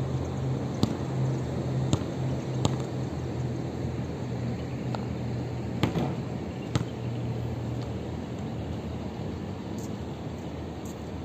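A basketball bouncing on an outdoor court, heard as a few sharp thuds spaced about a second or more apart, the loudest about halfway through. Under them runs a steady low hum of distant city traffic.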